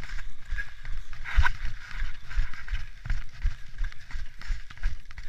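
Snowboard sliding over packed snow, the board scraping continuously with irregular low bumps.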